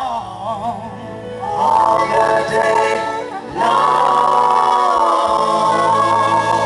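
Gospel vocal group singing in harmony, the voices wavering with vibrato, then swelling into a long held chord about three and a half seconds in.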